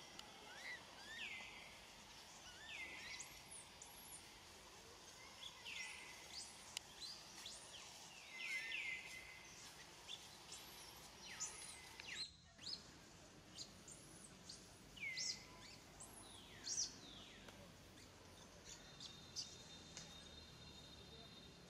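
Faint, repeated high-pitched chirping animal calls, short arching and falling squeaks coming in irregular bursts, with a thin steady whistle near the end.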